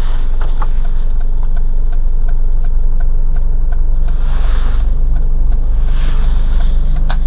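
FAW Oley's engine idling, heard from inside the cabin as a steady low rumble, with faint light ticks throughout. Two brief hissy rustles come about four and six seconds in.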